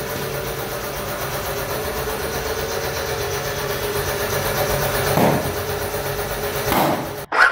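A machine motor running steadily with a constant hum. Two brief louder noises come about five and seven seconds in.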